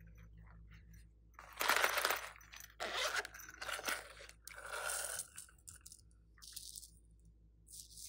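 Crunching, crackling noises from a pink plastic case being squeezed and crushed in the hands over a bowl of slime. It comes in four or so bursts, the first the loudest, then fades to faint scattered crackles.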